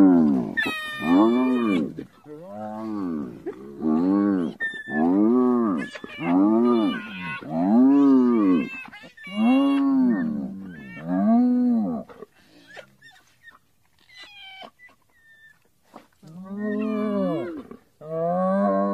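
Spotted hyena whooping: a series of about nine drawn-out calls, each rising and then falling in pitch, about one every second and a half. A pause follows with a few faint high squeaks, then two more whoops near the end.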